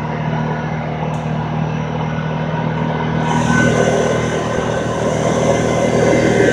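Kawasaki Teryx S LE side-by-side's V-twin engine running steadily as it drives along. About three seconds in, a rushing noise grows and the sound gets a little louder.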